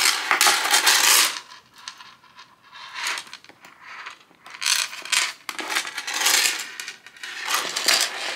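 Gold-tone metal chain strap of a Coach card case jingling and rattling in the hands in several bursts, the longest at the start, as its snap-hook clasps are clipped onto the case's side clips.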